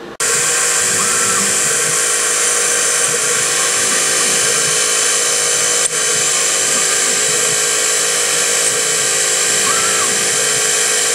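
Small Syil X3 CNC mill spotting holes in aluminium, its spindle running steadily at speed with a high whine and hiss. It starts abruptly just after the start and breaks briefly about six seconds in.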